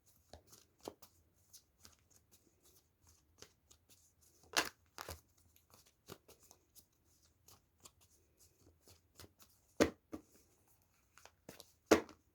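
Tarot cards being shuffled by hand: soft, irregular flicks and rustles of the deck, with three louder sharp slaps of cards about four and a half seconds in, near ten seconds and near the end.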